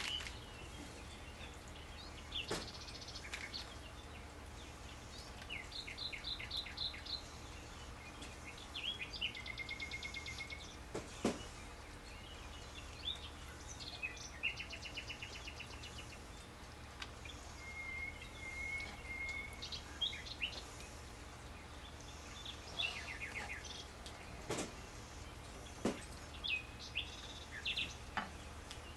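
Small songbirds chirping and trilling in short repeated phrases over a steady low hum, with a few sharp clicks now and then.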